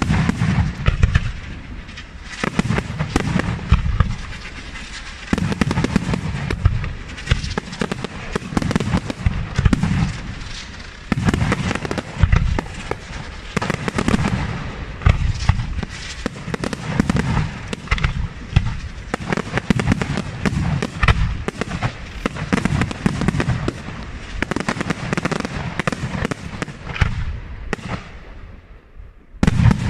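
Aerial firework shells bursting in a dense, rapid barrage of bangs with deep booms. The barrage thins out briefly near the end, then a fresh volley begins.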